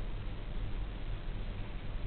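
Steady background hiss with a low hum, with no distinct typewriter key strikes.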